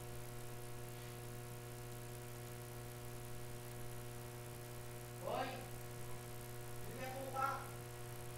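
Steady electrical hum with a buzz of evenly spaced overtones. Two brief faint voice sounds come about five seconds in and again about seven seconds in.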